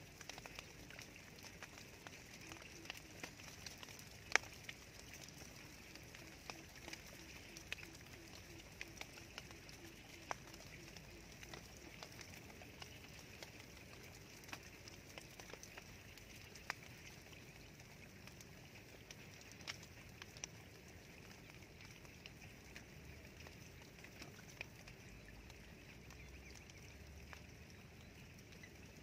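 Faint outdoor field ambience: a steady high hiss with scattered small clicks, and a faint low rapid pulsing from about four to eleven seconds in.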